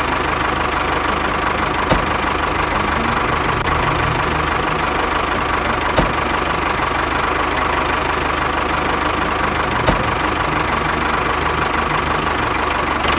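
Small motor of a DIY mini tractor water pump running steadily with an even whine, and a faint tick roughly every four seconds.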